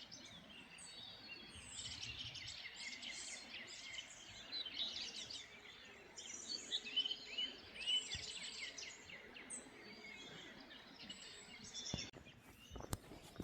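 Songbirds singing in a forest: many quick, overlapping chirps and trills from several birds at once.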